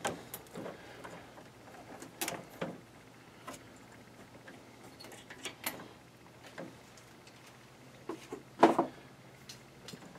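Scattered light knocks and rattles of hands handling parts at an opened condensing boiler's heat exchanger, with one louder knock near the end, over a faint steady low hum.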